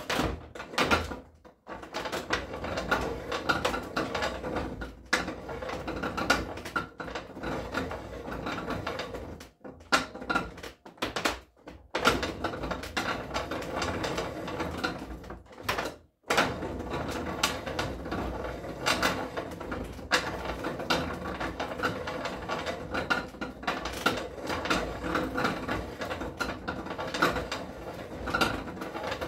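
Hand-worked barrel-reaming bench: the chain feed and crank mechanism clicking and rattling steadily as a reamer is drawn through a rifle barrel's bore, stopping briefly a few times.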